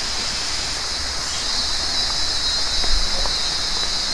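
Steady high-pitched drone of insects in the forest, swelling about a second in, over a faint low rumble.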